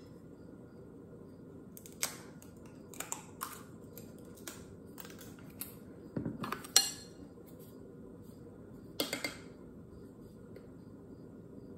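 Scattered light clicks and taps of a vanilla extract bottle and a measuring spoon being handled, with the sharpest a little before seven seconds in and a quick pair about nine seconds in.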